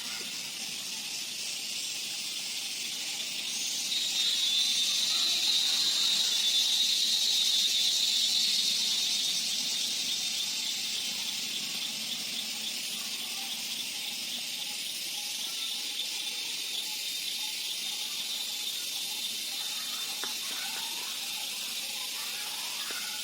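Evening chorus of crickets and other insects: a steady high-pitched trilling, with one louder, pulsing trill swelling in about four seconds in and fading away by about ten seconds. These are the insects' calls to attract mates.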